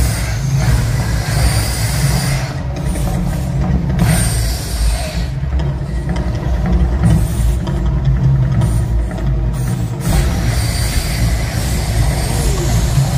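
Mirage volcano show erupting: a deep, steady rumble with rushing bursts of gas fire jets. The bursts come near the start, about four seconds in, and again from about ten seconds in.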